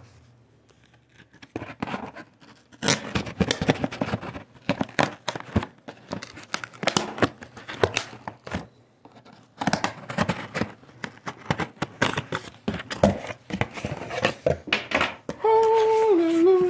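Cardboard shipping box being opened by hand: a blade slitting the packing tape, then tape and flaps tearing and crinkling in irregular scrapes and clicks. A brief held tone comes near the end.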